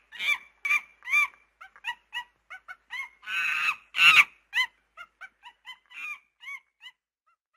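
A string of short, high, squeaky animal-like calls, about two to three a second, with two longer, louder cries among them; the calls stop about seven seconds in.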